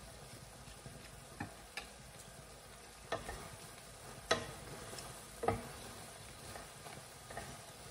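Chicken and capsicum frying in a pan with a faint sizzle, a utensil stirring and knocking against the pan about half a dozen times, loudest a little after the midpoint.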